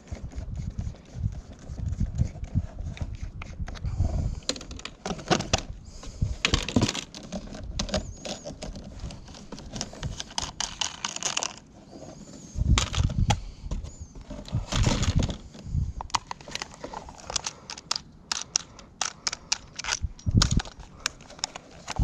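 Irregular clattering, clicking and knocking of plastic and metal as a discarded electric fan is handled and worked free of its stand.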